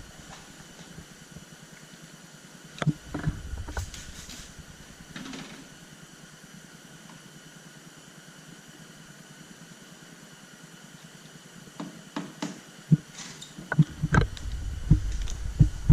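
A steady background hum with a few scattered light knocks and clicks, growing into a busier run of knocks and handling bumps over the last few seconds.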